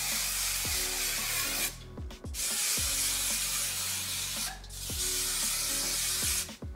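Aerosol can of contact adhesive spraying in three hissing bursts of about two seconds each.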